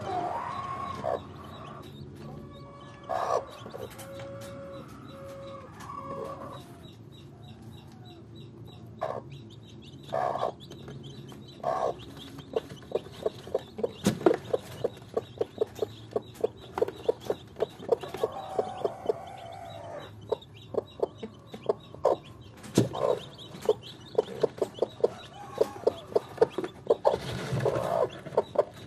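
Broody Swedish Flower hen on her nest of hatching eggs, clucking softly. A few separate calls come in the first half, then from about twelve seconds in a rapid run of short clucks, about four a second, with pauses.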